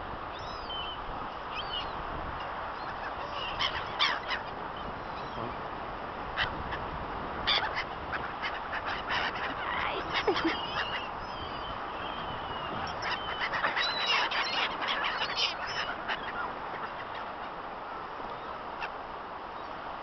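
A flock of gulls calling over food, many short squealing cries overlapping, thickest from about three seconds in until about sixteen seconds in, over a steady rushing noise.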